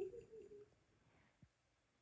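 A kitten jumps down with a soft thud and at once gives a short wavering trill-like call, under a second long.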